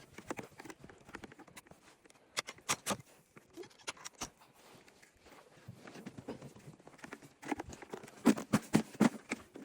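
Footsteps crunching in snow: scattered soft steps and knocks, then a quicker run of louder, evenly spaced steps about three a second, starting about three-quarters of the way in.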